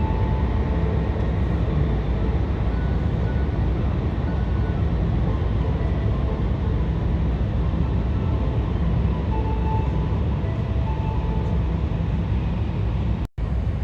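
Steady low rumble and hiss of a Tohoku Shinkansen train running at speed, heard from inside the passenger car. The sound drops out for a moment near the end.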